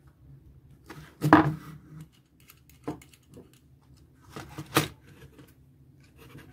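Sharp clicks and knocks from hand work on a plastic electrical switchboard: a metal tester screwdriver and a copper wire being handled against the board and the floor. The loudest knock comes just over a second in, with smaller ones near three seconds and a cluster just before five seconds.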